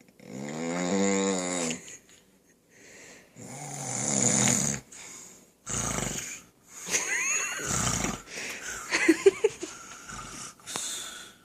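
A man snoring: about six heavy snoring breaths in a row, each a second or two long, with short pauses between.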